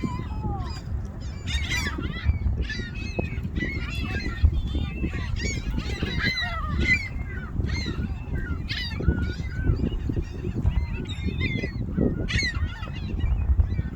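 A flock of gulls calling over one another, many short, rising and falling cries overlapping without a break.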